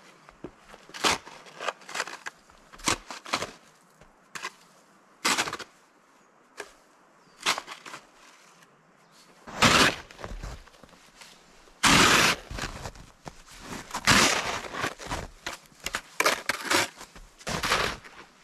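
Irregular sharp cracks and crunches, spaced out at first and turning into longer, louder crunching bursts about halfway through: brush and branches being snapped and handled in snow.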